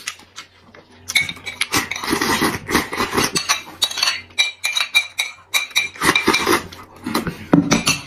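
A metal spoon clinks and scrapes against a ceramic bowl, some clinks ringing briefly, between loud slurping and wet chewing of mouthfuls of food in chili oil. The bowl is set down on the wooden table.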